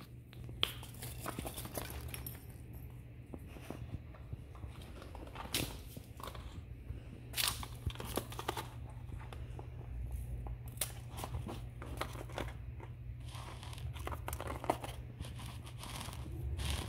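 A ferret scrabbling and playing on a tile floor: irregular clicks, scratches and rustles, with no regular rhythm.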